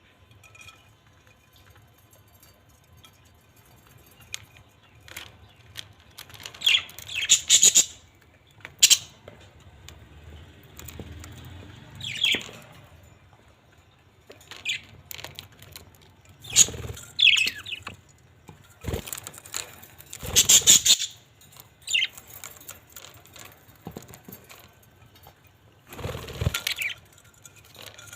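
Pet parrots squawking and chirping in scattered bursts, some calls sliding down in pitch, with wing flapping between calls.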